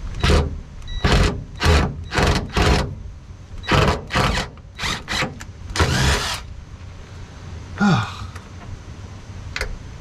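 Power drill run in about a dozen short bursts, one longer burst about six seconds in, working a bit or screw into the car's underbody sheet metal.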